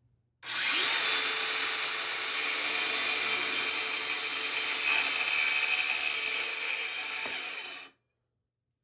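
A handheld power tool running in wood for about seven seconds, starting abruptly and cutting off suddenly.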